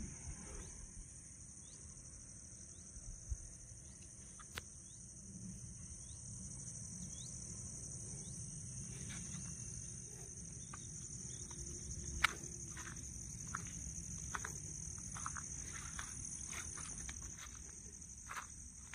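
Steady high-pitched insect chorus droning without a break, over a low rumble, with a few sharp clicks scattered through it, the loudest about twelve seconds in.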